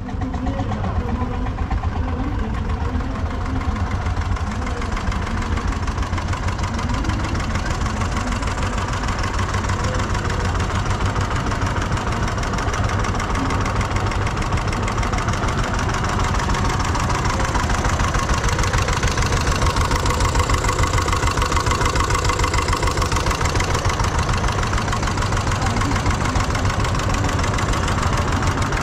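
Old stationary engine running steadily with a fast, even beat.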